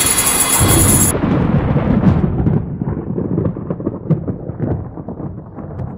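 Deep thunder rumble sound effect, loud at first and fading away over several seconds, with scattered crackles. The last of the music cuts off about a second in.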